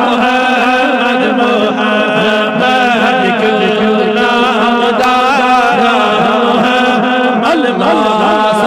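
A man's voice chanting a Kashmiri naat in long, unbroken melismatic lines that bend up and down in pitch, over a steady drone underneath.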